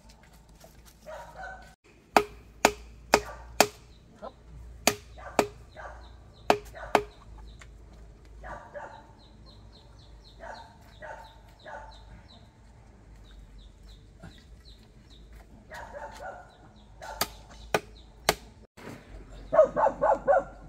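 About a dozen sharp chopping strikes in short runs, mostly in pairs about half a second apart, with chickens clucking between them. A dog starts barking near the end.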